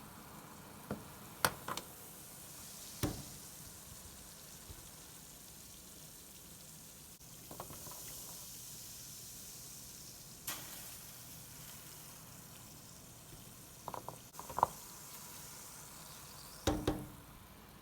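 Pot of boiling water with baking soda in it, bubbling and sizzling in a steady hiss. A few sharp clicks and knocks sound over it, the loudest near the end.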